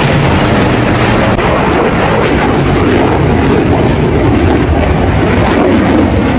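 Loud, steady jet noise from a Chengdu J-20 stealth fighter flying past overhead.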